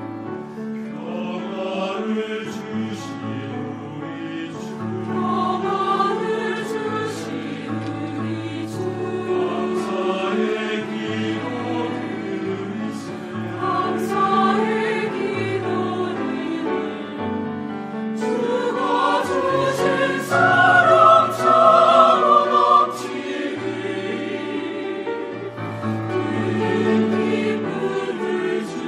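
Mixed church choir of women's and men's voices singing in unison and harmony, swelling to its loudest about two-thirds of the way through.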